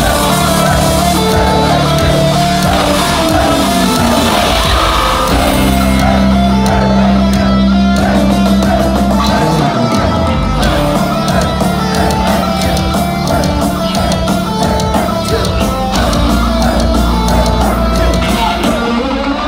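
Heavy metal band playing live at full volume, with long held bass and guitar chords that change every few seconds, heard from within the audience.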